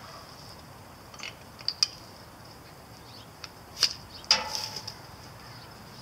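A few sharp clicks and, about four seconds in, a metallic clank with a brief ring, from hand work at a stopped chipper-shredder, over a steady high insect chirring.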